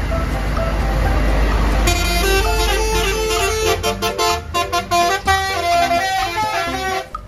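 Telolet multi-tone horn on an odong-odong mini tourist train playing a tune of quick stepped notes, starting about two seconds in, over a steady low engine rumble.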